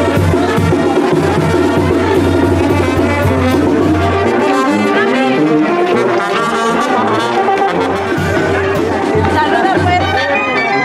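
Mexican street brass band playing: sousaphone bass line, trumpets and snare and bass drum. The deep sousaphone notes thin out about four seconds in while the horns and drums keep going.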